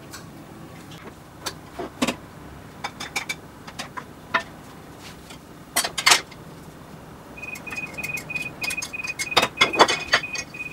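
A spatula clinking and knocking against a frying pan on the stove, the loudest knocks about six seconds in. From about seven seconds a high electronic beep repeats at one steady pitch, about four times a second, with more pan clatter over it.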